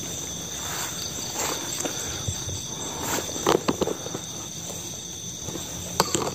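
Night insects such as crickets chirring steadily, with a few short clicks or knocks about three and a half seconds in and again near the end.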